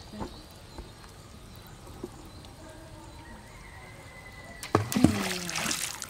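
A handful of material thrown out over a pond lands on the water about five seconds in, making a brief spray of many small splashes after a couple of sharp slaps.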